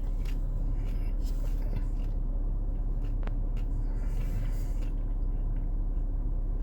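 Steady low rumble of background noise, with a few faint clicks and one sharper click about three seconds in.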